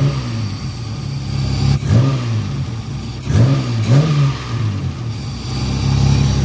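Honda J35 V6 given four quick throttle blips from idle, its pitch rising and falling back each time, the last two close together. It then settles into a steady idle that runs a little high while the engine warms up.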